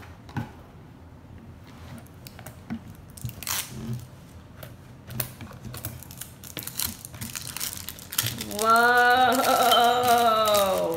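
Toy packaging of a Barbie Color Reveal tube crinkling, clicking and tearing as it is pulled open by hand. About eight and a half seconds in, a loud drawn-out pitched sound rises and then falls in pitch for about two and a half seconds.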